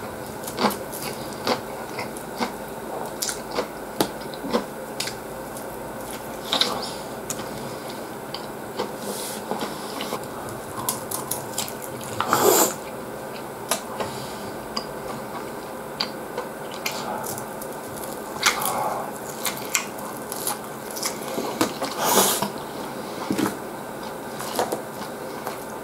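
Close-up wet chewing and mouth smacking of a man eating a katsudon of fried pork cutlet with egg over rice: a steady run of short smacks and clicks, with a few louder, longer bites about halfway through and again later on.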